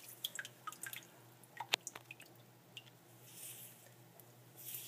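Scattered drips and small wet clicks as water runs out of a handful of wet live aquarium sand being squeezed and turned over in the hand, with a soft brief trickle about three seconds in and again near the end.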